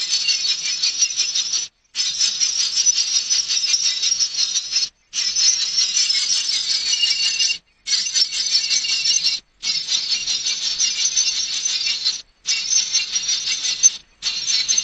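A dense chorus of shrill, rapid chirping. It cuts off abruptly and starts again every two to three seconds.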